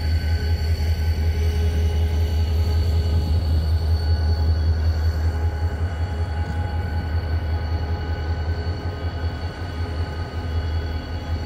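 Renfe class 333 diesel locomotive running as it slowly hauls an Alvia S730 set past: a steady low drone with faint steady whines above it, easing off near the end.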